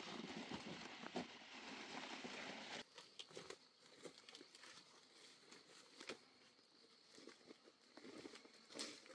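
Leaves and undergrowth rustling and crunching close by as a person pushes through brush carrying banana stalks. A little under three seconds in it drops abruptly to faint, scattered footsteps and rustles.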